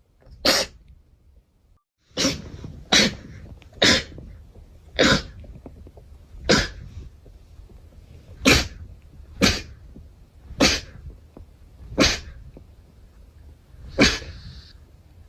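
A series of about ten short, sharp sneezes, each one to two seconds after the last, with a longer pause after the first.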